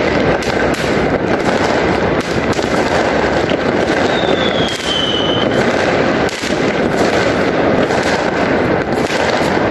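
Many fireworks and firecrackers going off at once in a dense, continuous crackling and popping, with a short falling whistle about four seconds in.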